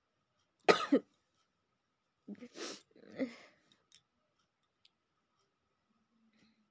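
A woman with a head cold sneezes once, a sharp, loud burst about a second in, then gives a few shorter, breathy coughs a couple of seconds later.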